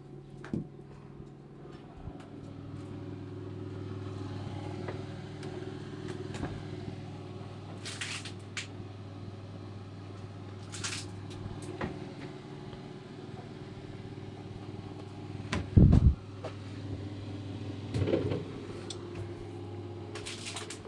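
Steady low electric hum from a homemade refrigerator-built incubator's running motor, with a few short rustles and a loud dull thump about three-quarters through, then a smaller one.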